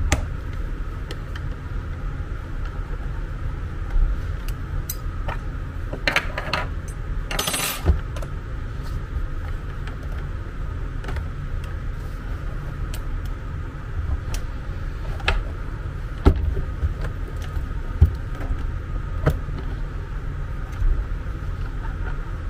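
Scattered clicks and light knocks of a screwdriver and hands working a hard plastic housing, with small metal screws clinking, over a steady low hum. There are two short scraping rustles about six and seven and a half seconds in.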